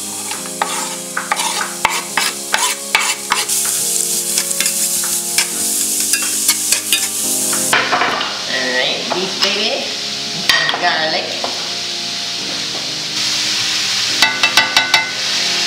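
Diced onions sizzling in hot oil in a stainless steel frying pan, with a spoon stirring and scraping them and many small clicks of utensils against the pan. A quick run of clicks comes near the end.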